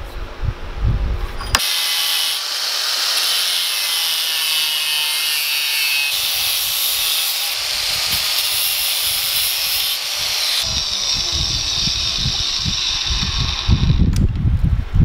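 Angle grinder with a thin cut-off disc cutting into a mild steel block held in a vise: a steady high grinding noise that starts about a second and a half in and stops near the end. Low knocks of handling come before and after it.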